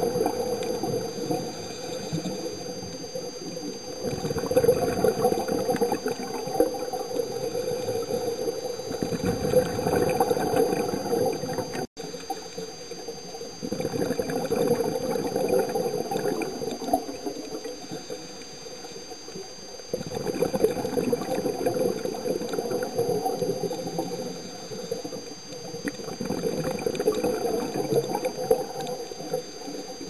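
Scuba diver breathing through a regulator, heard underwater. Rushes of exhaled bubbles come every several seconds, with quieter stretches between, and the sound drops out briefly near twelve seconds.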